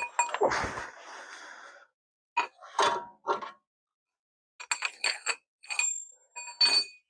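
Steel hand tools clanking and clinking together: a run of short, separate metallic knocks with a ringing tone, coming in bunches.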